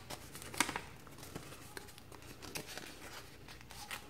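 Faint rustling and a few short crinkles of a sheet of coloured paper being folded and creased by hand.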